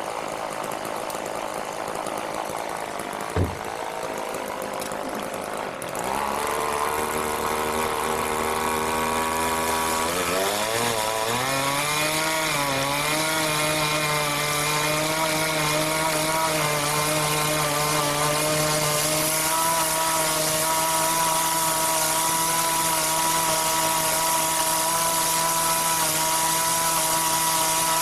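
Remote-controlled chainsaw running at a lower speed, with a sharp click about three seconds in; at about six seconds the engine speeds up, wavers, then holds a steady high speed from about twelve seconds on, rising a little more near twenty seconds, as the saw cuts through a tree limb.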